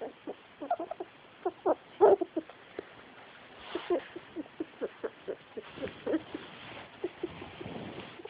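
Pet rat making a weird, worrying noise: a run of short, irregular clicks and squeaky chirps, several a second, the loudest about two seconds in.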